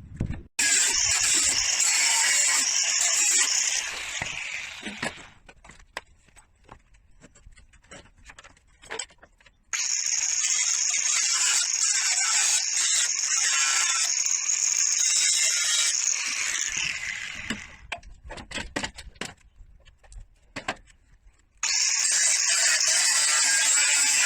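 A power tool runs in three bursts of a few seconds each, every one starting suddenly and running down at the end, with clicks and knocks of handling between.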